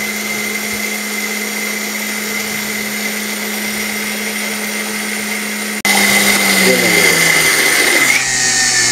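Electric spice grinder's motor running at full speed, grinding spice powder in its steel jar with a steady whine. About six seconds in it breaks for an instant and comes back louder, then its pitch falls as the motor slows near the end.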